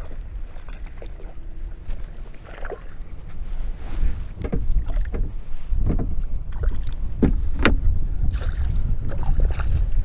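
Wind on the microphone and water around a kayak, with a run of short sharp splashes and knocks that come thicker in the second half as a hooked fish is brought to the boat.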